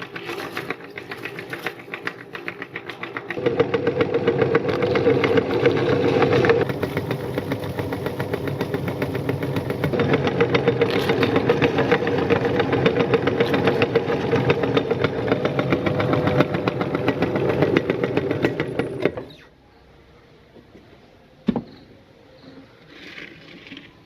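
Electric meat grinder running and grinding heart-shaped cookies, its motor note getting louder about three seconds in and stopping abruptly about nineteen seconds in. A single sharp click follows a couple of seconds later.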